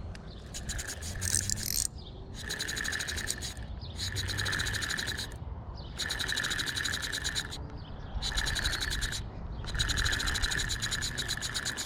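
A wild animal calling in a run of about six rapid pulsed trills, each lasting around a second with short pauses between, over a low background rumble.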